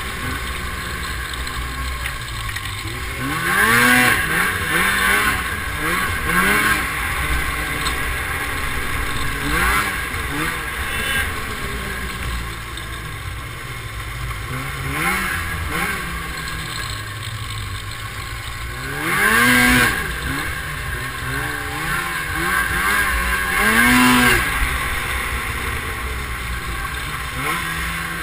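Snowmobile engine running along a trail, its pitch rising and falling again and again as the throttle is opened and eased off, with louder surges a few times, over a steady rush of track and wind noise.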